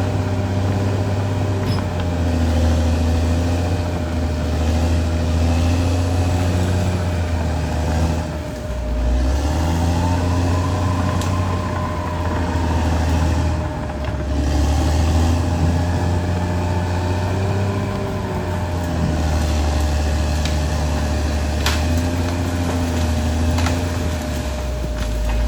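Caterpillar D6R XL bulldozer's diesel engine working under load, its revs rising and falling every few seconds, with a steady whine over it and a sharp click near the end.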